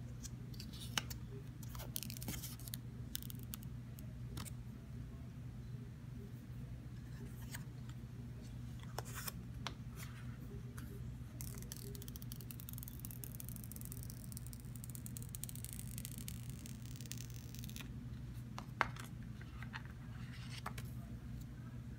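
Handling sounds of a new iPhone 12 and its cardboard box: scattered light clicks and taps, with plastic protective film crinkling and peeling off the screen for several seconds in the middle. A steady low hum runs underneath.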